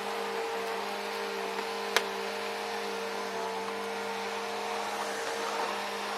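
Bissell Rewind Premier Pet bagless upright vacuum running steadily with a constant motor hum and suction hiss as it picks up grass and dirt, with one sharp click about two seconds in.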